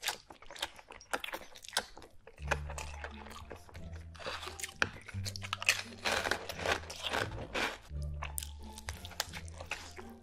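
Close-miked eating of a burger drenched in green sauce: wet squeezing of the bun, then big crunchy bites and chewing, with many sharp crunches throughout. Background music with a low bass line comes in a couple of seconds in.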